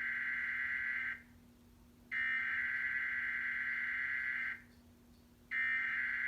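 Emergency Alert System SAME header: bursts of buzzing data tones sent over TV audio at the start of a required monthly test. One burst ends about a second in, the next runs from about 2 to 4.5 seconds, and a third starts near the end.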